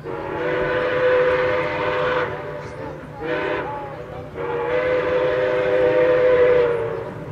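A locomotive's multi-note chime sounding a long blast, a short blast and another long blast.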